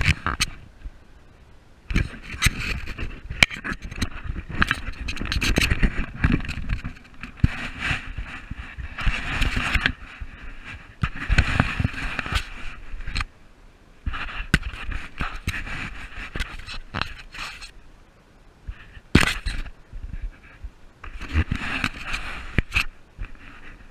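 Kayak paddling: repeated bursts of paddle splashing and knocking about every couple of seconds, with rumble and clicks from the camera housing and wind.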